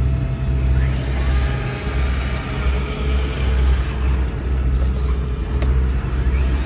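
Hydraulic pump of a scale-model CAT long-boom RC excavator running steadily with a low hum, shifting slightly in pitch as the boom lifts and swings.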